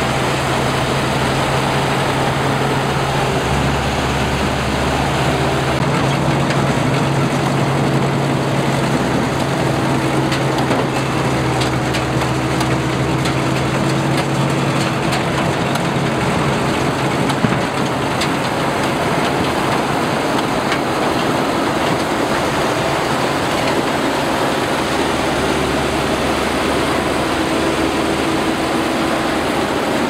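Zoomlion tracked rice combine harvester running steadily as it cuts and threshes rice: a constant engine hum under the noise of the header and threshing machinery, with a single sharp knock a little past halfway.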